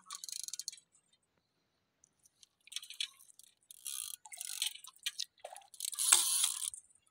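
A hooked fish splashing at the water's surface close to shore while it is played on a spinning rod. The splashes come in short bursts, and the loudest is about six seconds in.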